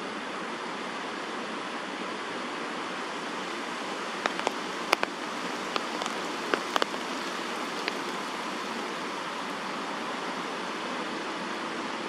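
Steady hiss of rain falling on the tree canopy, with a handful of sharp ticks from about four to eight seconds in.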